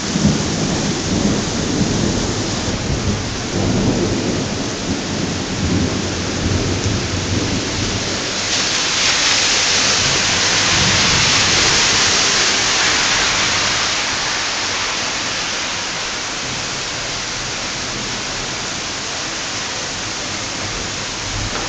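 Heavy thunderstorm rain pouring down steadily, with thunder rumbling through the first several seconds. About eight seconds in the rain's hiss swells louder for several seconds, then settles back.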